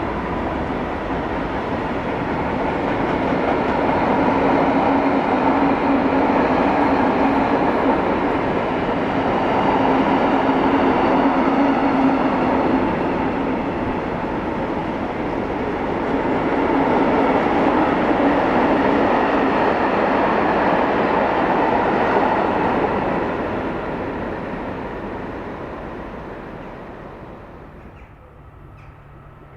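A freight train passing on the line, its wagons rolling over the rails in a loud, steady rumble that swells twice. It fades away over the last few seconds as the train goes off.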